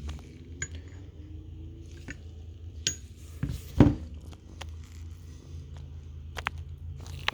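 Metal parts of a field-stripped Beretta 81 .32 ACP pistol clicking and clinking as they are handled, with a louder knock a little before halfway.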